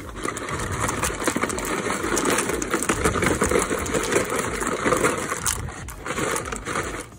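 Dry bow tie pasta rattling and sliding out of a cardboard box into a pot of boiling water: a dense clatter of many small clicks that drops off near the end.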